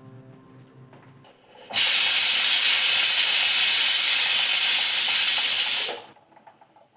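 A loud, steady hiss that starts abruptly about two seconds in, holds evenly for about four seconds, then cuts off.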